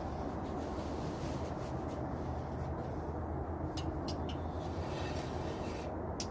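A steady low rumble, with a few light metal clinks about four seconds in and again near the end as a cast iron Dutch oven is lifted by its wire bail handle off the smoker's grate.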